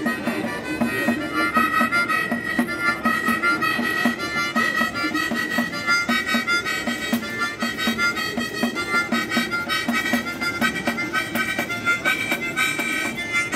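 Harmonica playing a melody with a pandeiro, a Brazilian jingled frame drum, beaten in a steady rhythm alongside it.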